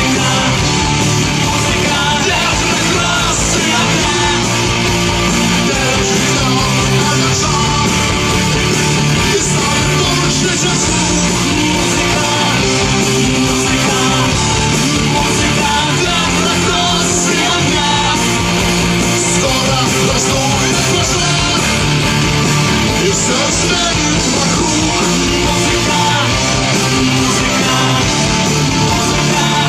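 Live rock band playing loud, steady music with electric guitars to the fore.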